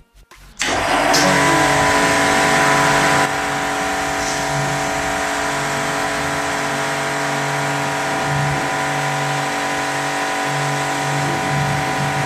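Pressure washer running, its jet of water spraying foam off a car's lower body panels: a steady hiss of spray over a constant motor and pump hum. It starts about half a second in and dips slightly in level about three seconds in.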